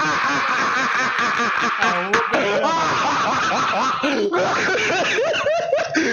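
A man laughing hard in high, squealing, repeated laughs. A steady hiss sits behind the laughter and cuts off about four seconds in.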